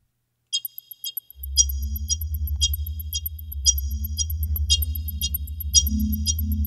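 Synthetic electronic sound coming out of Ableton Live's Vocoder. Bright, clicky high chirps tick about twice a second. A steady low drone comes in about a second and a half in, with soft low tones stepping between a few pitches.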